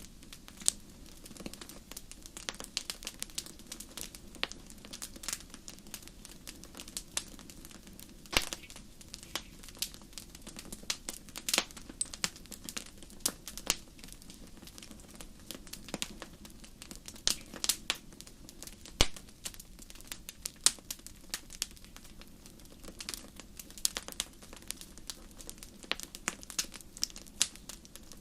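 Wood fire crackling in a fireplace: irregular sharp pops and snaps, several a second, some much louder than others, over a steady low rumble of burning.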